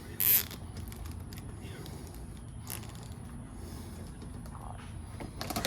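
Hands fitting a plastic protective cover over wiring in an engine bay. There is a short scrape just after the start, then faint clicks and rustling, and a quick run of clicks near the end.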